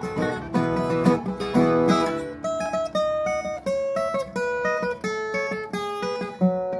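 Acoustic guitar played solo: strummed chords for about two seconds, then a picked single-note melody line, as the instrumental opening of a song.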